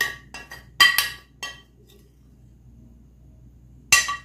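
A metal spoon clinking and scraping against a glass dish while scooping out a dry flour mixture. There are several sharp, ringing clinks in the first second and a half, a pause, then one loud clink near the end.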